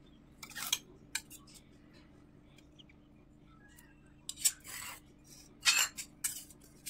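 Stainless-steel serving spoon clinking and scraping against steel bowls and plates as fish curry is dished out onto rice: scattered short strokes, with a quiet stretch in the middle and the loudest clinks in the second half.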